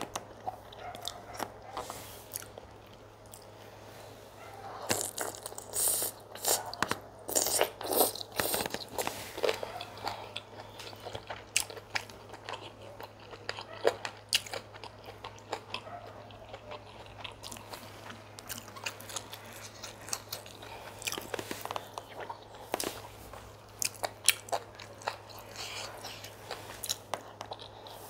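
Close-miked eating of chicken pepper soup and fufu: wet chewing and biting with short crunches and mouth clicks, busiest from about five to nine seconds in, then slower and sparser.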